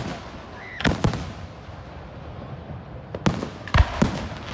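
Aerial fireworks shells bursting: two sharp bangs about a second in, then three more in quick succession near the end, each trailing off in a short echo.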